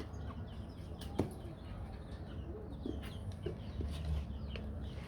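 Aseel chickens clucking in short low notes, among many quick high chirps. There is a single sharp click a little over a second in.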